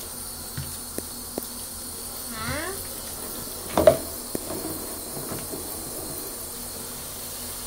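A toddler in a bathtub gives a brief rising squeal about two and a half seconds in and a short loud vocal sound just before four seconds. Between them there is a steady faint hiss and a few small knocks.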